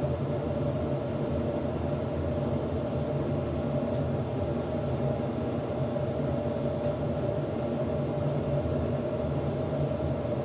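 Hoover H-100 vented tumble dryer running, drying on the wool setting: a steady mechanical drone with a constant tone in it.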